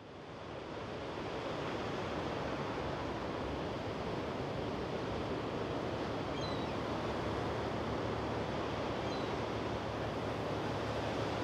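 Sea surf breaking and wind blowing across the microphone, a steady rushing noise that fades in over the first second or so.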